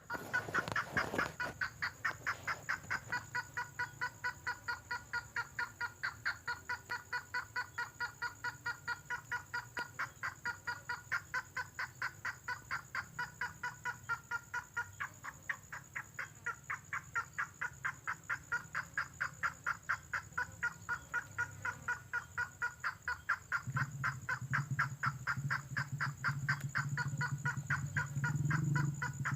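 Lure-call recording of the bird called tengkoah merah: a single short, sharp note repeated steadily about four times a second. Near the end a low rumble joins in.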